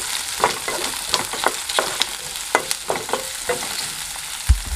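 Chopped onions sizzling in hot oil in a kadai while a spatula stirs them, scraping and clicking against the pan. There is a dull thump about four and a half seconds in.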